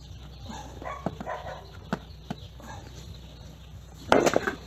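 Metal clicks and knocks of a pin spanner on an angle grinder's flange nut as it is worked loose to free a torn cutting disc, with a louder cluster of knocks and scraping near the end.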